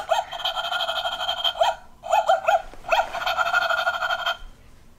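Toy robot dog playing its electronic dog sounds: a steady synthetic tone with short rising chirps, in two long stretches with a break of about a second near the middle, stopping a little after four seconds in.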